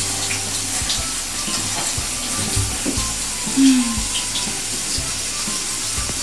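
Handheld shower spraying water onto a small dog's wet coat and the shower floor, a steady hiss. A short, low, falling voice-like sound about three and a half seconds in.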